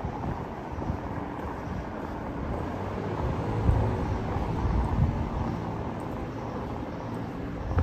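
Outdoor city background: a steady low rumble with a few stronger low swells about halfway through, and no voices.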